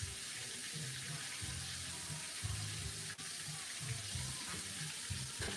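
Catfish frying in hot oil: a steady sizzle throughout.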